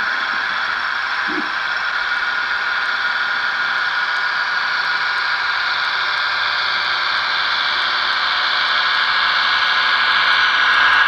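DCC sound decoder in an OO gauge model diesel multiple unit playing its diesel engine running sound through the model's small speaker, with the hum of the wheels on the track, growing a little louder as the train draws near.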